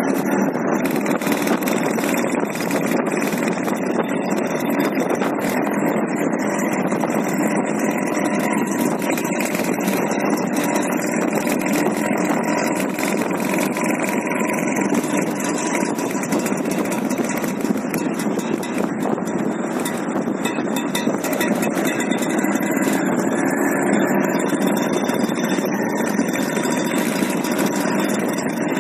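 Vintage scooters running steadily while riding, heard from one of the scooters: engine and road noise at an even level.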